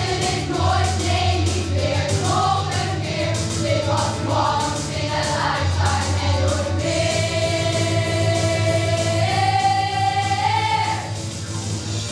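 A youth ensemble sings together in chorus over instrumental accompaniment. The phrase ends on a long held note that steps up once and stops about a second before the end.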